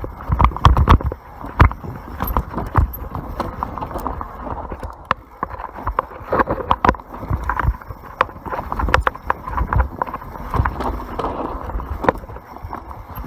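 YT Capra full-suspension mountain bike running fast down a dirt forest trail: tyres rumbling over the ground with irregular sharp knocks and rattles as it hits bumps and roots, the hardest knocks in the first couple of seconds.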